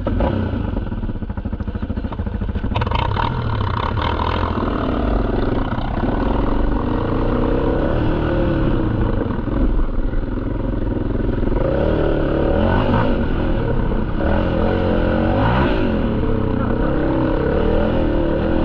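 ATV engine running under load as the quads climb a dirt trail, its pitch rising and falling with the throttle, with a clear dip and rise in revs about fifteen seconds in.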